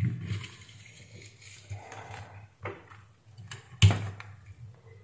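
Hands handling a small power-supply circuit board and its red plastic wire connector. There is soft rustling and a few clicks and knocks, the sharpest nearly four seconds in.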